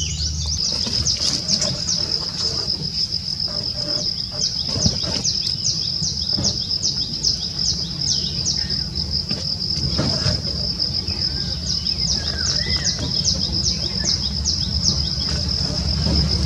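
Wildlife ambience: a steady high-pitched insect drone, with a bird repeating a short falling call about twice a second through most of the stretch.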